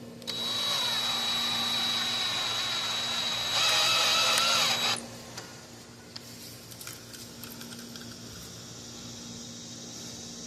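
Electric drill running for about five seconds, boring a hole through wood for the solar panel's cord, with a steady whine whose pitch wavers under load. It runs louder in its last second or so, then stops abruptly, followed by a few faint clicks and knocks.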